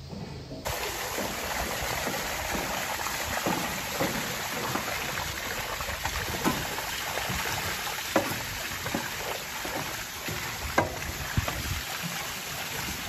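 Brush scrubbing inside a water-filled stainless-steel cattle drinking trough: steady splashing and sloshing of water, with irregular sharp knocks as the brush hits the steel.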